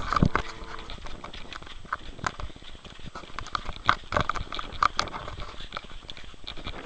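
Footsteps of a person walking along a rough concrete path, with bumps and rubbing from a hand-held camera being carried.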